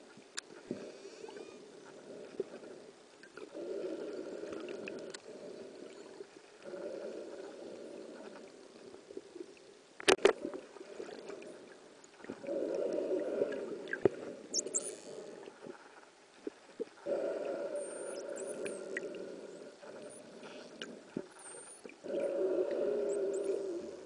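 Underwater recording with dolphins whistling: short high whistles that rise and fall, heard several times in the second half. Underneath is a low rushing that swells and fades every few seconds, and a single sharp knock comes about ten seconds in as the loudest sound.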